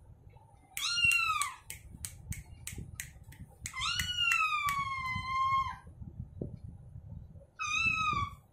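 A cat meowing three times: a short high call, then a long drawn-out one, then another short call near the end. A run of light clicks falls between the first two meows.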